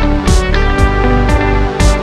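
Background music: a guitar-led track with a steady beat, sharp percussion hits about twice a second.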